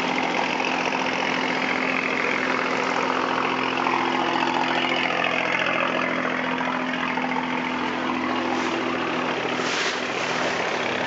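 Wooden riverboat's engine running at a steady speed, one constant drone that never changes, under a steady rushing noise.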